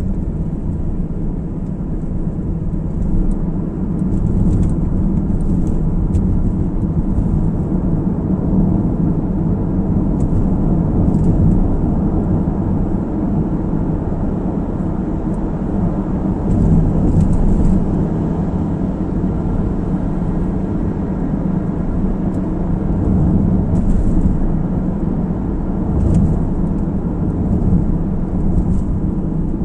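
A car driving on the road: a steady low rumble of tyres and engine that swells and eases slightly.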